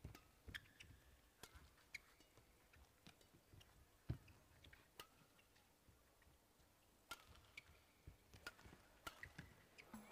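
Faint badminton rally: irregular sharp clicks of rackets striking the shuttlecock and players' feet on the court, with a few short shoe squeaks. The loudest strike comes about four seconds in.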